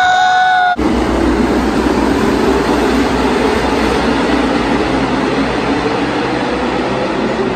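A man's held shout, cut off abruptly under a second in, then the steady, loud roar of a field of NASCAR stock cars' V8 engines running around the track.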